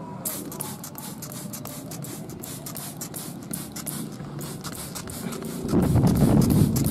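Hand-pumped plastic trigger spray bottle being squeezed again and again, giving a quick run of short hissing sprays. From about six seconds in, a louder low rumbling noise close to the microphone joins them.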